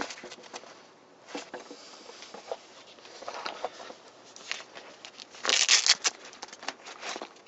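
Nylon backpack gear being handled by hand: fabric rustling and small clicks of straps and buckles, with a louder rasping burst just under a second long about three-quarters of the way through as a black pouch is pulled at.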